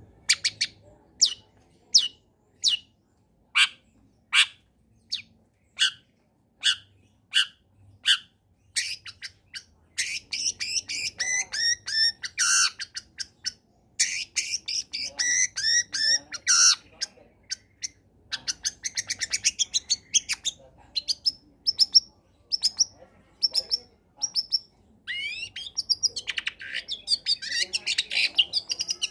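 Long-tailed shrike singing. It starts with a string of sharp single calls, a bit more than one a second, then about ten seconds in breaks into a fast, scratchy, varied song with runs of rapid short repeated notes.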